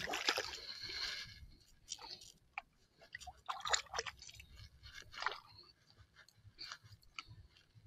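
Small irregular sloshes and splashes of shallow sea water, with light handling clicks and rustles, loudest in the first second or so.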